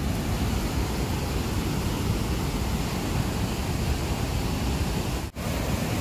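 Mistaya River rapids churning through a rock canyon: a steady rushing of white water, cutting out for an instant about five seconds in.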